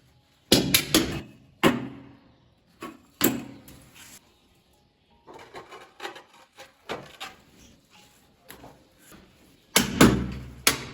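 Irregular knocks and taps, with several louder thuds early on and a loud one near the end.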